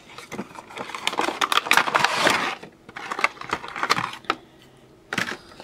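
Clear plastic packaging insert and cardboard window box of a Funko Pop figure crinkling and rustling as the vinyl figure is pulled out. A dense run of crackles for the first couple of seconds, then scattered clicks and a short burst near the end.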